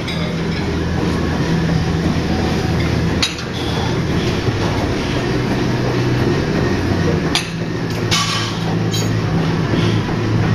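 Steady low rumble and hum of a busy weight room, broken by a few sharp metallic clanks of weights, about three seconds in and three more near the end.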